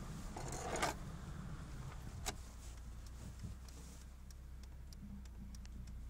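Volkswagen Golf Mk2 PN four-cylinder petrol engine running with a steady low hum. A short rustling burst comes under a second in and one sharp click a little over two seconds in, followed by several brief high ticks, scattered and irregular.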